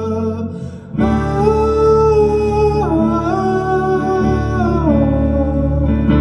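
Singing over acoustic guitar accompaniment: a voice holds long notes that step down in pitch, after a brief dip about a second in.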